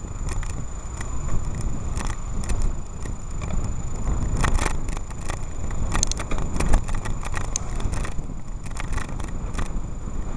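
Wind rumbling on the microphone of a camera riding on a moving bicycle, with quick rattles and clicks as the bike goes over the road surface, amid car traffic. A thin steady high whine sits under it all.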